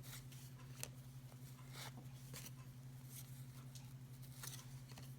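Faint ticks and rustles of cardboard trading cards being handled and flipped through, with a slightly sharper tick just under a second in, over a steady low hum.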